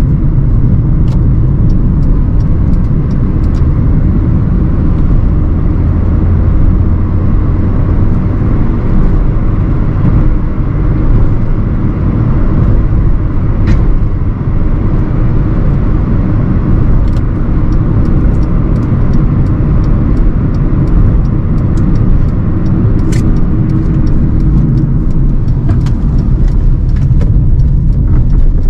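A 2009 Hyundai i20's 1248 cc engine and its tyres on the road while driving, a steady low rumble with scattered small clicks and ticks, more of them near the end.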